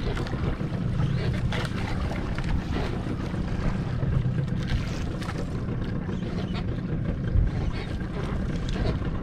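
Outrigger fishing boat's engine running with a steady low hum, under the wash of water and wind buffeting the microphone.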